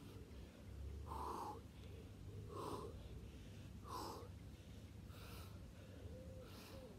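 A man breathing hard through a set of squats, with one short, forceful breath each rep: about five, roughly one every second and a half.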